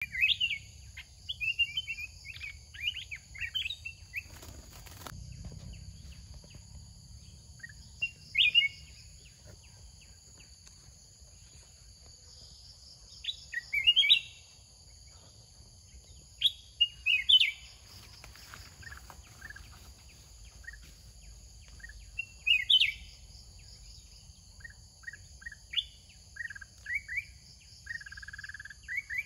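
Sooty-headed bulbuls calling in short, quick phrases every few seconds over a steady high-pitched insect buzz, with a brief knock about four seconds in.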